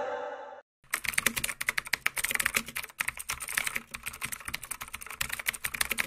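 Rapid, irregular computer-keyboard typing clicks, used as a sound effect, starting about a second in. Just before that, the tail of a song fades out.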